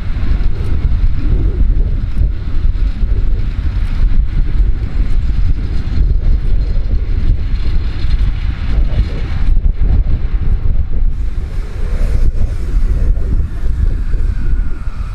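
Vintage Tait electric suburban train rolling in along the platform towards the microphone, its running rumble mixed with heavy wind buffeting on the microphone.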